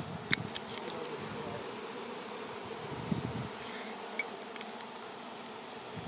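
Honey bee swarm in flight: a steady, dense buzz of many bees in the air. A sharp click comes about a third of a second in, with a few fainter ticks later.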